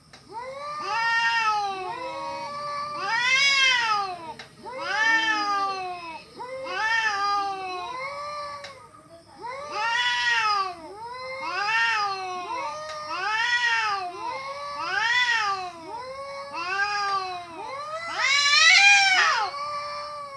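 Two cats caterwauling at each other in a fight: long, wavering yowls that rise and fall in pitch, one after another about every second and a half to two seconds and sometimes overlapping. The loudest comes near the end.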